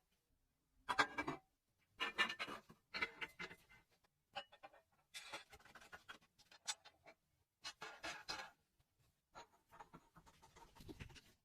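Irregular short bursts of scratchy scraping and rubbing on the hand-crank fruit grinder's metal parts, with a few sharp clicks among them.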